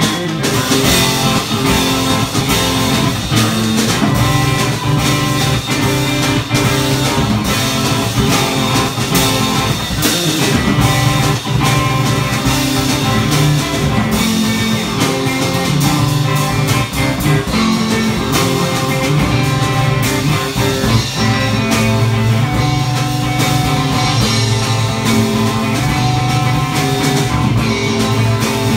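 Electric guitar played loud through an amplifier with a drum kit, live rock band playing together, cymbals and drum hits over the guitar.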